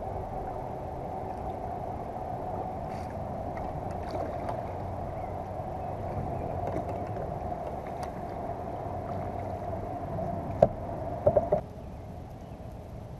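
A steady, slightly wavering drone as the fishing kayak moves over the water. It stops abruptly right after a sharp knock and a quick cluster of knocks near the end, as the paddle is set down across the kayak's hull.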